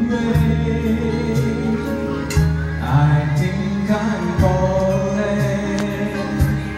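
A man singing karaoke through a handheld microphone over a backing track, with a steady bass line and a drum beat.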